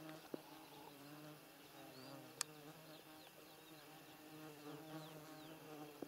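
Faint buzzing of a flying insect close to the microphone, a wavering hum that swells and fades, with short high chirps in the background and a single sharp click about two and a half seconds in.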